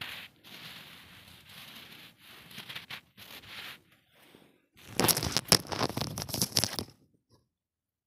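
Fresh snow crunching as a hand presses and scrapes into it, in short uneven stretches, then louder, denser crunching for about two seconds a little past halfway, which stops suddenly.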